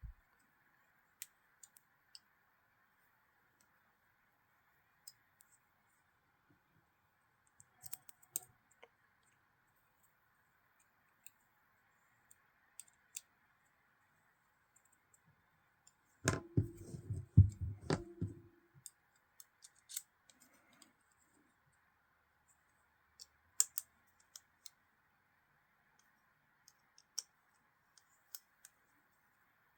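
Scattered small sharp clicks and taps of a folding knife's metal parts and small tools being handled during reassembly. About halfway through comes a louder two-second cluster of knocks and clatter.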